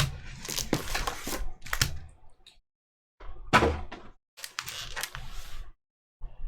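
Trading cards and card packs handled on a table: short bursts of rustling, flicking and tapping, with brief gaps between them.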